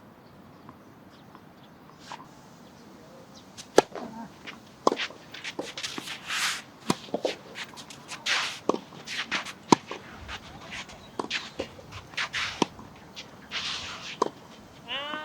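Tennis rally: sharp racket-on-ball hits roughly once a second, with short scraping sounds in between, starting a few seconds in.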